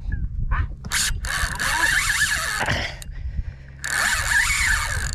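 Penn 4000 spinning reel working under load against a hooked fish, a steady gear-and-line whirr in two long stretches with short breaks about a second in and about three seconds in.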